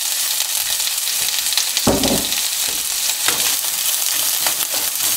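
Sliced onions frying in olive oil in a nonstick pan, a steady sizzle as fresh oil is poured in. A short low thud comes about two seconds in, then a wooden spatula stirs the onions with a few brief scrapes against the pan.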